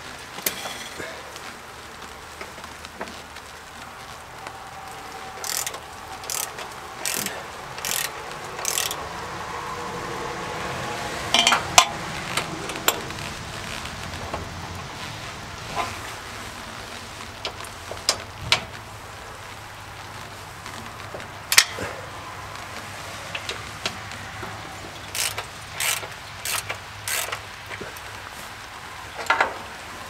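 Ratchet wrench clicking in short runs with pauses between, loosening the engine's motor mounting bolts on a portable bandsaw sawmill.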